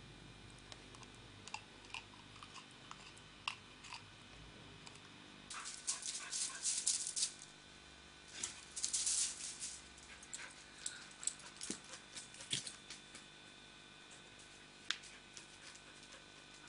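A dog gnawing a chew, with scattered clicks, then two longer spells of crackling as a dog moves about on loose gravel, followed by a few scattered crunches.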